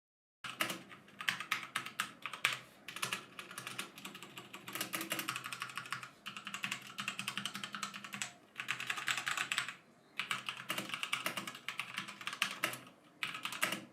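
Mechanical keyboard switches being typed on quickly: a dense, irregular stream of key clicks, starting about half a second in, with a few brief pauses.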